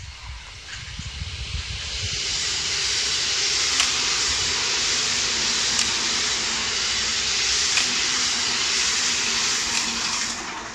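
Electric commuter train passing close by: a steady rushing of wheels on rail builds up over the first two seconds, with a faint click about every two seconds, and fades near the end. Low wind rumble on the microphone is heard at the start.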